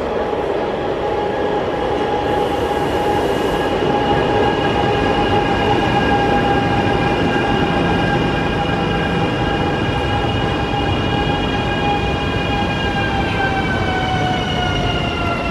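Flytoget airport express electric train arriving at a station platform. A rolling rumble runs under a steady, multi-toned electric whine, which starts to fall in pitch near the end as the train slows to a stop.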